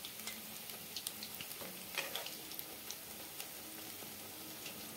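Pakoras deep-frying in hot oil in a kadhai: a steady sizzle with scattered small pops, and a sharp click about two seconds in as the metal spoon stirs them.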